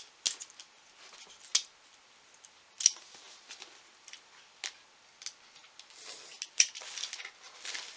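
Plastic shrink wrap being cut and peeled off a cardboard box: scattered small clicks and snips, with denser crinkling of the plastic from about six seconds in.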